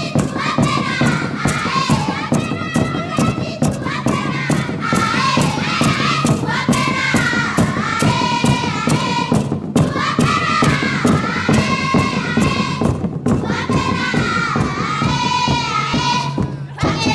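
Music: a group of voices singing over a steady drum beat.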